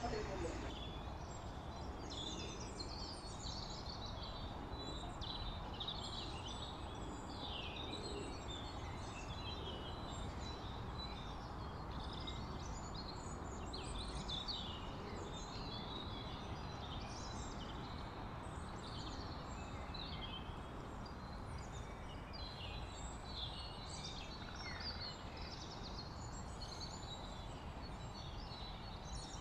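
A steady background hiss with many short bird chirps scattered throughout.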